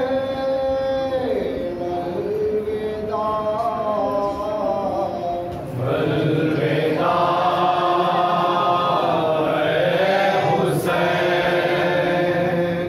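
Noha recitation: a male reciter chants a mourning lament into a microphone, unaccompanied. About six seconds in, a group of men joins in and the chant grows fuller and louder.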